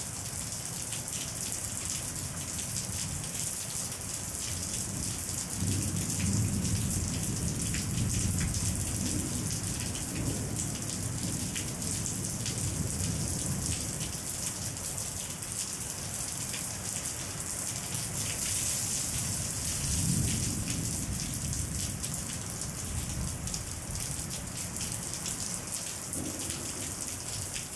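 Airbrush spraying paint: a steady hiss of air and atomised paint, with patches of low rumble at times.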